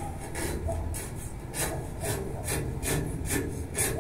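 Sandpaper rubbed by hand back and forth on a metal balcony railing, a rhythmic scraping of about three strokes a second, sanding the railing down to prepare it for painting.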